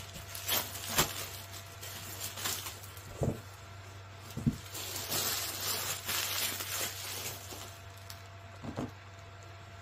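Plastic wrap crinkling and rustling as it is pulled off a stretched canvas, with a few sharp knocks as the canvas is handled and laid down; the longest rustle comes in the middle, over a steady low hum.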